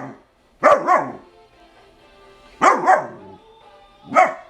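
German Shepherd dog giving deep alert barks at something it hears outside: two quick barks, two more about two seconds later, and a single bark near the end.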